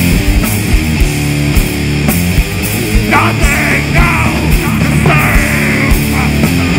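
Live metal band playing, with electric guitars, bass and drums. The vocalist comes in on the microphone about three seconds in.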